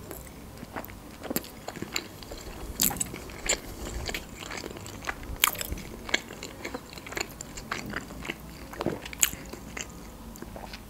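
Close-miked chewing of a sushi roll: irregular wet mouth clicks and soft crunches. Near the end comes another bite, into a green vegetable slice.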